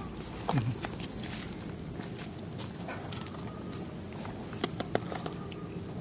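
Insects droning steadily at one high pitch, with scattered small clicks on top.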